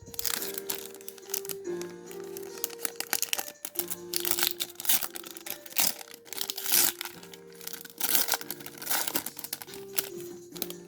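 Plastic wrapping and foil booster packs crinkling and rustling as they are handled, in irregular crackles throughout, over steady background music.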